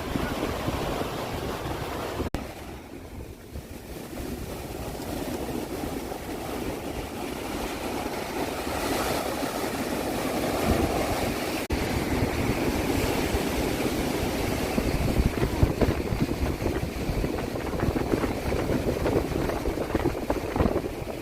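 Ocean waves surging and washing onto the shore in a continuous rush of surf, swelling louder toward the middle, with wind buffeting the microphone.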